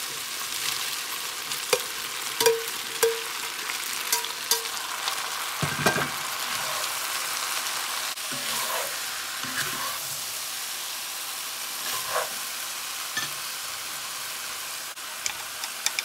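Beef strips and broccoli sizzling steadily in a hot cast-iron pot while a spatula stirs and tosses them, with many sharp clicks and scrapes of the utensil against the iron.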